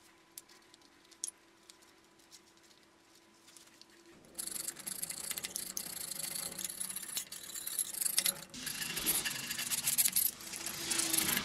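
Faint steady hum with a couple of small clicks, then about four seconds in a scratchy rubbing noise starts and keeps going, like abrasive hand work on a surface.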